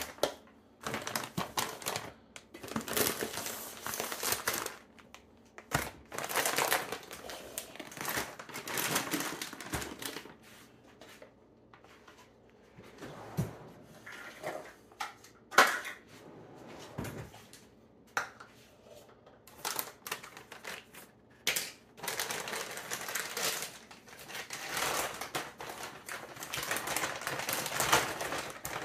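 Plastic food packaging rustling and crinkling as it is handled and opened, in irregular bursts with short pauses, among light clatter of kitchen items being moved about.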